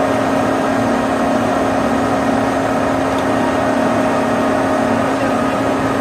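Putzmeister concrete pump truck's engine and hydraulic system running, a loud, even hum.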